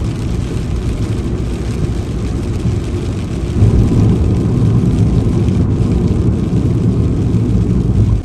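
Steady low rumble of a car driving, made of road and engine noise, growing louder about three and a half seconds in.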